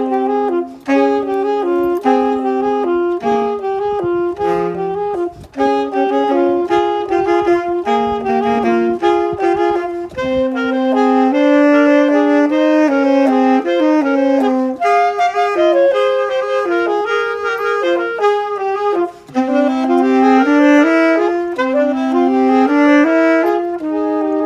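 Instrumental music: a single wind instrument playing a melody, with quick runs of notes up and down near the end.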